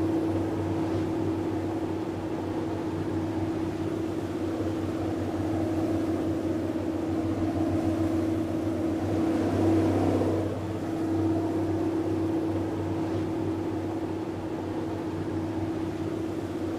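Tour boat's engine running with a steady hum, heard from on board; the tone shifts briefly about ten seconds in.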